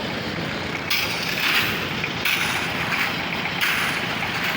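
Concrete mixer machine running, with a swishing hiss that repeats about every second and a half over a steady mechanical noise.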